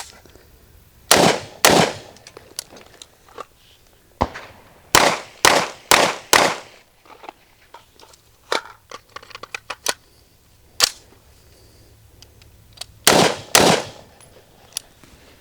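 A timed rifle-to-pistol transition drill: two rifle shots about a second in, then a quick string of four pistol shots about five seconds in, then after a pause for the rifle reload, two more rifle shots near the end. Lighter clicks and clacks of gun handling fall between the shot groups.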